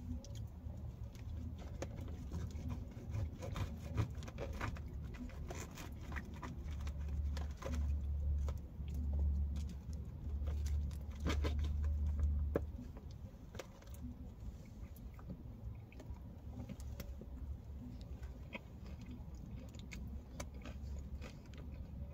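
Eating sounds: a plastic fork clicking and scraping in a plastic takeout container, and chewing. Under them runs a low rumble that grows louder for several seconds in the middle.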